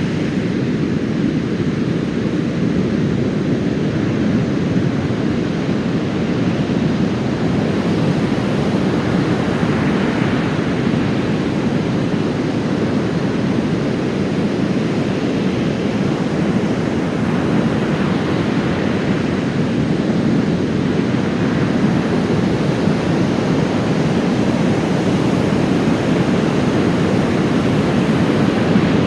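Heavy surf after a typhoon: big waves breaking and rushing up a sandy beach in a constant deep roar, with wind buffeting the microphone.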